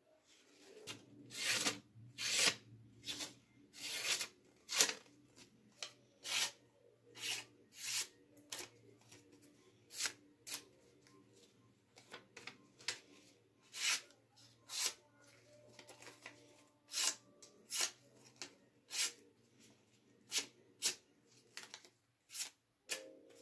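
A freshly sharpened, hand-made steel knife slicing through sheets of paper in a series of quick, crisp cuts, roughly one a second. This is a sharpness test on the new edge.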